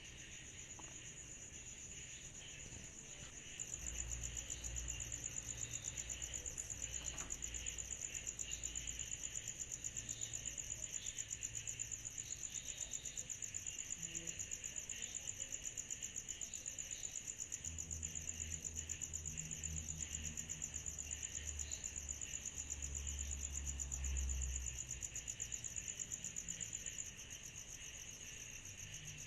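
Cicadas calling in a steady, high-pitched chorus with a fast pulsing buzz, growing louder about four seconds in and dropping back near the end. A low rumble comes and goes underneath.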